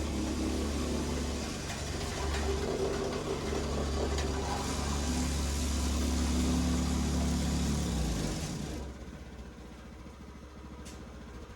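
Small gasoline engine of a rented tamper (soil compactor) starting up and running steadily for about eight seconds, then cutting out. The machine is leaking gasoline as it runs.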